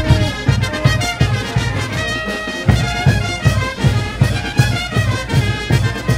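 Brass band playing dance music: brass instruments carrying the tune over a steady low drum beat of about two to three beats a second.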